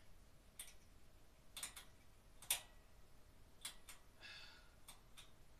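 Faint, sharp clicks, about seven spread out, the loudest about two and a half seconds in, as the switch on an overhead twin-bulb light fixture is worked, turning the lights off and on. The switch is a little wonky. A brief soft hiss comes a little past four seconds.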